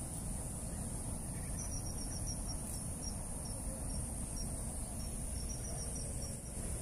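Insects chirping outdoors: a steady high-pitched drone, with a run of short, quick high chirps starting about a second and a half in and stopping just before the end, over a steady low rush of background noise.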